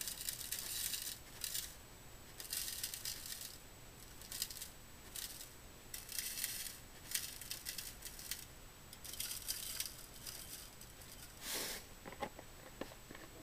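Copper sulfate crystals shaken from a plastic bottle, falling into the compartments of a clear plastic parts tray in a string of short pours, one cell after another. A louder burst comes near the end.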